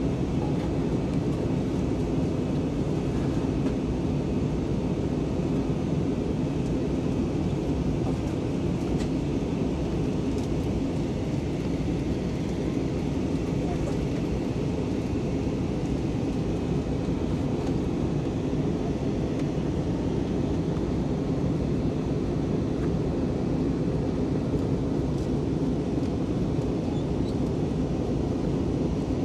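Steady cabin noise inside an Airbus A320-232 in flight: an even, low rumble of rushing air and the IAE V2500 turbofan engines.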